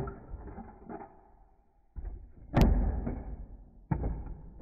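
3D-printed rocket capsule separator firing: knocks and clunks, with a sharp snap about two and a half seconds in and another clunk near the end, as the capsule is ejected off the launcher section.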